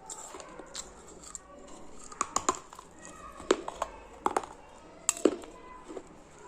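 Close-up crunching of something hard being bitten and chewed: a run of sharp, uneven cracks, loudest about halfway through and again near the end.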